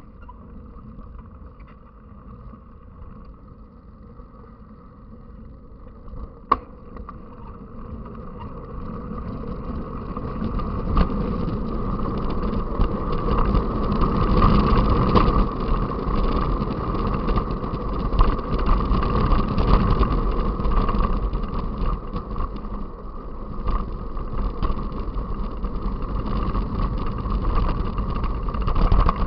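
Rushing riding noise from a mountain bike in motion, wind and tyre noise together, growing louder from about eight seconds in. A single sharp click a few seconds before that.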